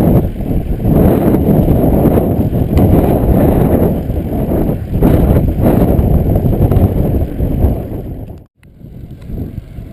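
Strong wind buffeting on the microphone of a camera riding along on a bicycle, with occasional knocks. The sound cuts out for a moment about eight and a half seconds in and comes back quieter.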